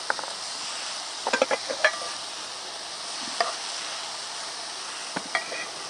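Spiralized courgette sizzling in a frying pan over a portable gas stove as it is stirred, the utensil clicking and scraping against the pan in a few quick strokes about a second in, once around the middle, and again near the end.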